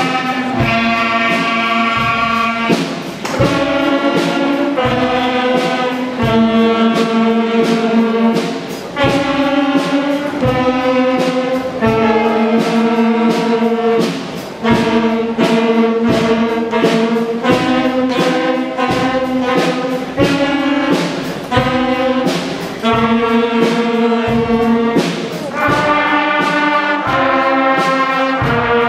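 School concert band playing: brass and woodwinds holding chords that change every second or two, with regular drum strikes keeping the beat.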